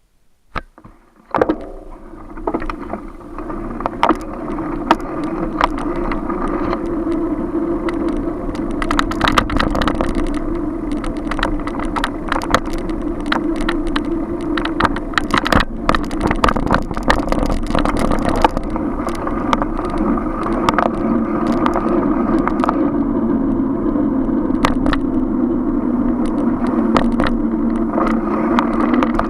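Riding noise from a moving bicycle picked up by a bike-mounted recorder: a steady hum and rumble with frequent sharp rattles and knocks, as from bumps in the road. It opens with a couple of knocks before the steady noise builds up in the first two seconds.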